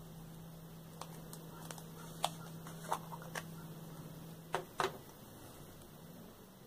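Plastic screw cap of a small acrylic paint jar being twisted off by hand, a scatter of sharp light clicks, followed by two louder clicks close together. A low steady hum runs underneath and stops about two-thirds of the way through.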